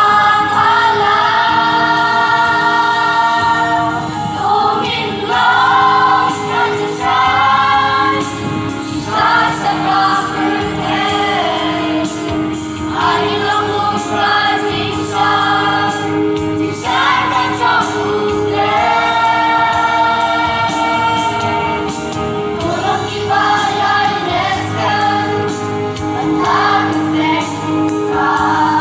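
A large mixed choir singing a Khasi gospel hymn in long sustained phrases, with short breaths between lines.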